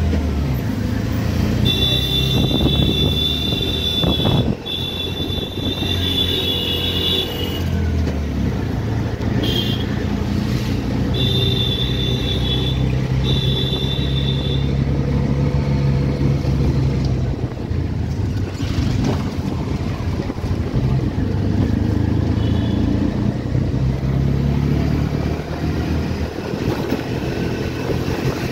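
Auto-rickshaw engine running as it moves through traffic, heard from inside the passenger cabin. Twice, a high steady tone sounds for several seconds.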